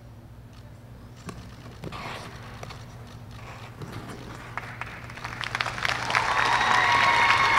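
Audience applause that starts sparse about five seconds in and swells toward the end as the skater's program finishes.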